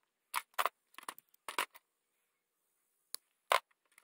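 Small metal parts of a hand-held wire tensioning tool and its stainless wire clicking and clattering as they are handled: a quick run of short clicks in the first two seconds, then two more, the louder one about three and a half seconds in as the tool is put down on the plastic table.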